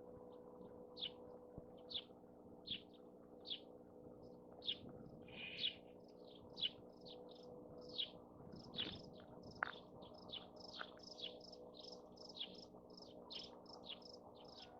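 Birds chirping: short high falling chirps, about one a second at first, coming faster and overlapping from about halfway through, over a steady low hum.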